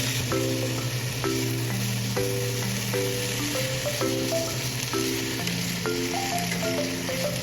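Green peppers and tofu sizzling steadily in a frying pan as they are stirred, with the chili bean (doubanjiang) sauce just added. A light background melody of short, repeated notes plays throughout.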